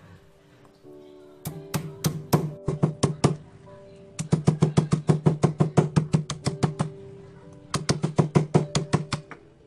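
Stone pestle pounding star fruit in a granite mortar: sharp, rapid strikes, about seven a second, in three runs: a short run about a second and a half in, a long one from about four seconds in, and another near the end.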